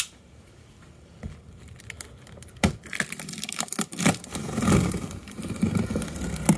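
A folding knife cutting through the packing tape on a cardboard box: a run of scratchy tearing noise with sharp clicks. It starts about two and a half seconds in and gets louder near the end.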